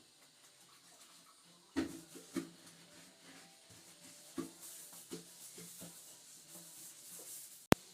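Cloth wiping and scrubbing a surface, with a few soft knocks of items being handled and one sharp click near the end.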